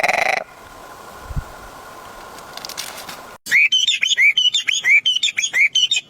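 A bird calling in a fast run of short chirps that rise and fall, about four or five a second, starting abruptly about three and a half seconds in after a stretch of quiet hiss. A loud pulsing sound cuts off about half a second in.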